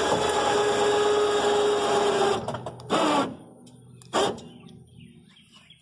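Cheap Harbor Freight electric winch running steadily as it moves a Cargo Glide truck-bed slideout along its rails. It stops a little over two seconds in, then gives two short bursts about a second apart.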